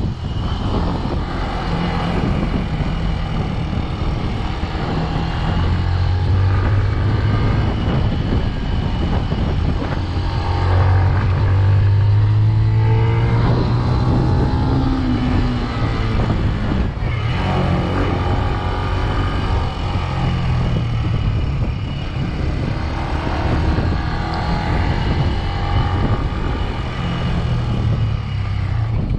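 Benelli BN 125's single-cylinder 125 cc engine running under way, its note rising and falling with the throttle and loudest about twelve seconds in, under a heavy rush of riding wind on the microphone.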